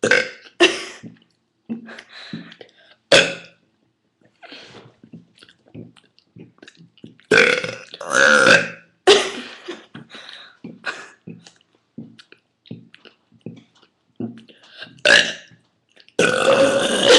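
Two people belching deliberately in turn: a string of short burps, with a couple of longer, louder ones about seven to nine seconds in, then loud laughter breaking in near the end.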